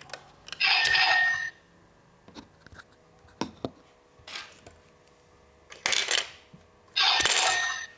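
Handling of a plastic toy ATM: scattered light clicks and taps, with three louder rattling bursts, like coins shaken or tumbling, about a second in, near six seconds and near the end.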